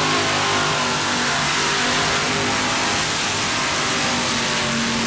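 Modified pulling tractor's big racing engine running flat out at steady high revs as it drags the weight-transfer sled down the track.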